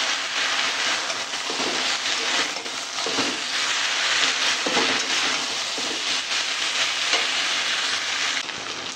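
Vegetables and ground chilli and turmeric sizzling in hot oil in a metal karahi while a spatula stirs and turns them, the spices being fried down with the vegetables. A steady frying hiss with a few short scrapes of the spatula against the pan.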